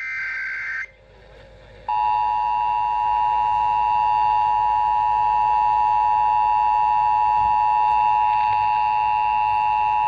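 Emergency Alert System test coming over AM radio through a weather/hazard alert monitor's speaker. It opens with the last short, buzzy burst of the SAME digital data header. About two seconds in, the steady two-tone EAS attention signal starts and holds.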